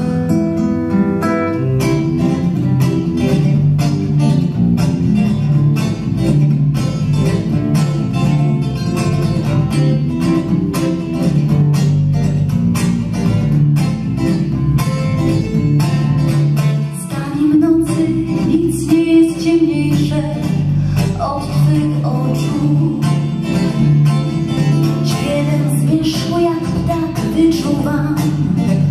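Live acoustic band playing an instrumental passage: a nylon-string classical guitar and a steel-string acoustic guitar picked in a quick, even rhythm over an electric bass guitar line.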